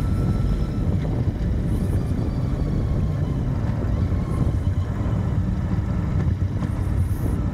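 Royal Enfield Continental GT motorcycle engine running steadily while the bike rides along, with wind noise on the microphone.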